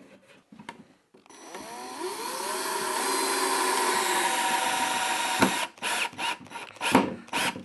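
Cordless drill driving a screw into a red cedar brace: the motor whine rises in pitch as it speeds up, holds steady for a few seconds, then cuts off with a click. A run of short sharp clicks and knocks follows near the end.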